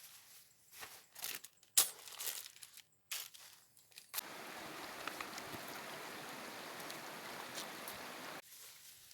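Running water of a waterfall or stream, a steady rush that starts suddenly about four seconds in and cuts off sharply after about four seconds. Before it come a few light clicks and rustles of handling.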